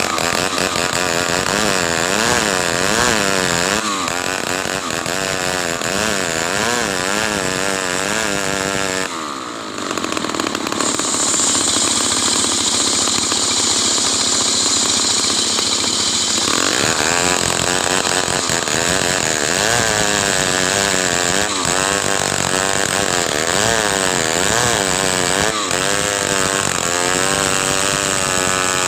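Stihl chainsaw running under load in timber, its engine pitch wavering up and down as it cuts. It dips briefly about nine seconds in, then runs on with a steady high hiss added.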